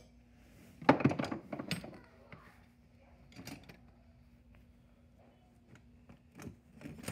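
Hard household objects clattering and knocking as someone rummages through them: a loud cluster of knocks about a second in, then a few lighter knocks and taps, over a faint steady hum.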